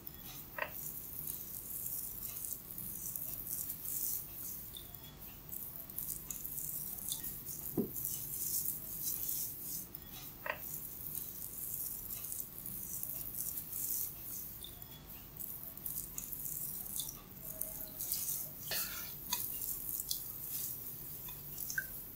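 Hair cracking during a head massage: hands grip and rub handfuls of hair close to the microphone, giving a dense, repeated dry crackling and rustling, with a few sharper clicks and one dull thump about eight seconds in.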